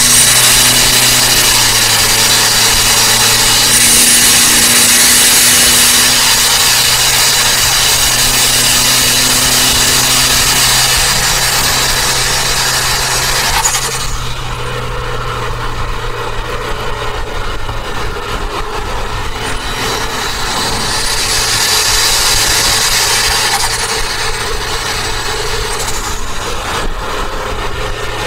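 Turbocharged Toyota Avanza driving at speed, its engine running under steady road and wind noise heard from inside the cabin. The noise drops suddenly about halfway through, then swells again for a few seconds before easing.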